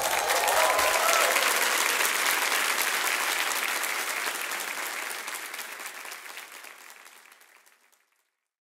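Audience applauding after a song ends, with a cheer rising over the clapping in the first second or so. The applause fades away gradually and is gone shortly before the end.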